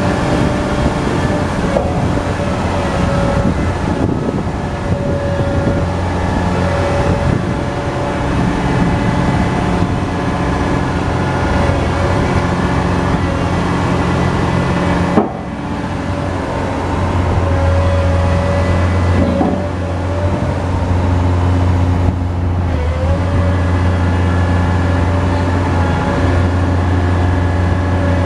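Hitachi EX1200 excavator's large diesel engine running steadily under working load, with a whine from the hydraulics that rises and falls as the machine works. The sound breaks off sharply about halfway through and picks straight up again.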